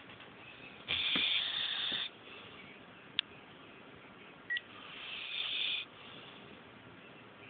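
Sleeping dog snoring: two loud breaths about four seconds apart, the first starting abruptly, the second building up and then cutting off. The owner says she can't breathe well.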